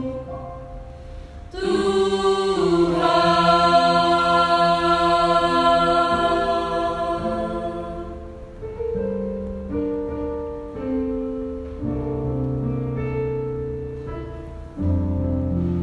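Mixed church choir singing a hymn in several-part harmony: a loud full chord comes in about a second and a half in and is held, then the singing softens through a run of slower chord changes.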